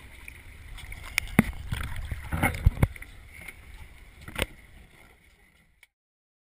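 Handling noise as a fish is hauled over the side of a small fishing boat: a low rumble with a series of sharp knocks and bumps against the hull. It fades, then cuts off abruptly about six seconds in.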